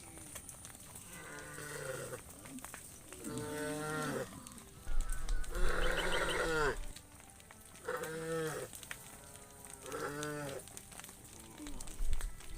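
Cattle mooing: five calls in a row, each about a second long, the third one longest and loudest.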